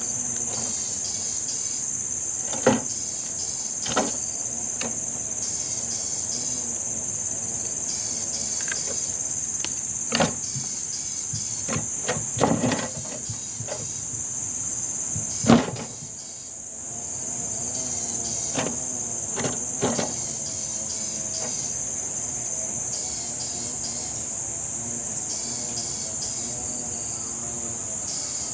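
Steady high-pitched drone of an insect chorus, with a handful of sharp clicks and knocks scattered through it, the loudest about fifteen seconds in, after which the insects briefly drop away for a second or two.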